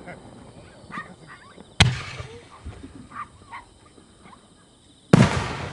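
Two loud booms from aerial firework shells, about three seconds apart, the second trailing off in a long echoing rumble. A few short, faint high chirps sound between them.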